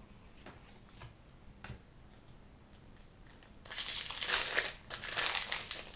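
A few faint taps of cards being set down, then from about halfway the loud, continuous crinkling of a Double Masters booster pack's foil wrapper being torn open.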